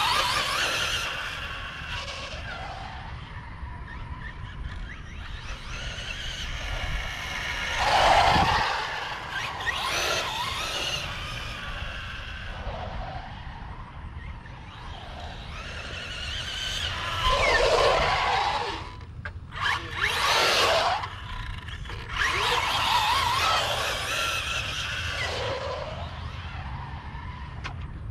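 Two-wheel-drive Traxxas rally RC car with a Hobbywing QuicRun 10BL120 brushless motor, whining up and down in pitch as it speeds up and slows through several passes. Its Mudboss tires squeal and skid on concrete as it slides.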